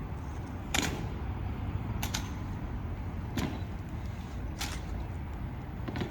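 A rifle drill team's slow-cadence drill: sharp knocks land at an even pace about every second and a half, one of them doubled, over a steady low outdoor rumble.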